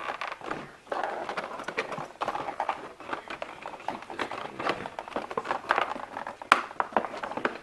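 Plastic drone and its packaging being handled: a run of irregular clicks, taps and rustles, with one sharp click near the end.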